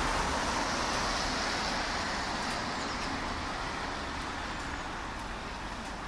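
Road traffic noise: a steady, even rush that slowly fades.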